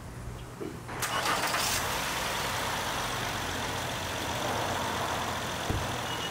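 A 2014 Honda Accord's 3.5-litre V6 starting about a second in, a brief crank as it catches, then idling steadily. This is its first start after an oil change.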